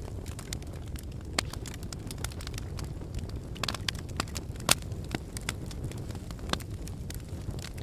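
Wood fire burning in a fireplace: a steady low rumble with frequent sharp crackles and pops, the loudest pop coming a little past halfway.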